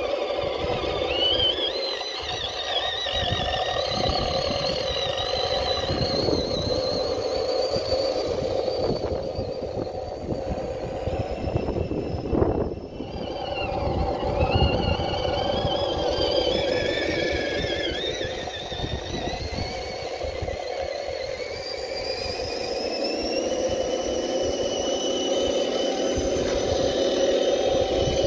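Radio-controlled 6x6 truck driving over grass, its electric motor and gearbox whining with a pitch that rises and falls with the throttle, over a low rumble. There is a brief knock about halfway through.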